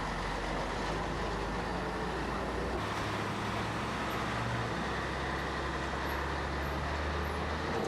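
Motor vehicle engine running steadily with road and traffic noise; its low hum shifts in pitch about three seconds in.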